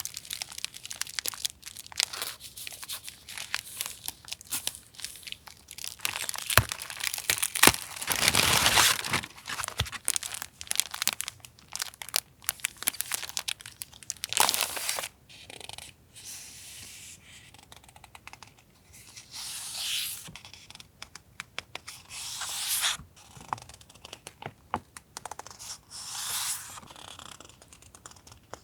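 Paper handled close up: rustling, crinkling and tearing, with many small taps and clicks and a few longer swishes, the loudest about eight seconds in.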